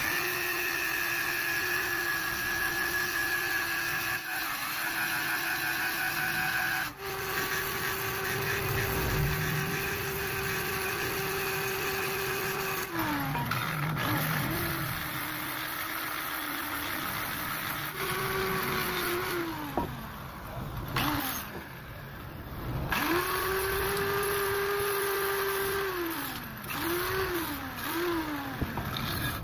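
Handheld electric angle grinder running with an abrasive disc, grinding and smoothing the point of a forged steel spike, throwing sparks. Its steady whine holds through the first half; later the grinder is switched on and off several times, and its pitch rises and then dies away with each short run.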